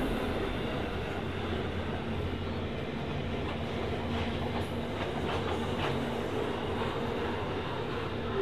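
Freight train's grain hopper wagons rolling past on the near track: a steady rumble of steel wheels on rail, with a few sharp clacks about halfway through. The locomotives' deep engine rumble drops away right at the start.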